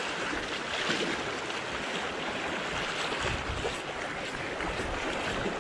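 Steady rushing of sea water washing around a tetrapod breakwater, mixed with wind.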